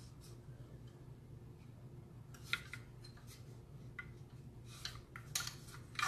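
Light clicks and taps of an AR-15 rifle with a Magpul MOE handguard being handled and turned over in the hands, with a few sharp ticks about midway and near the end, over a steady low hum.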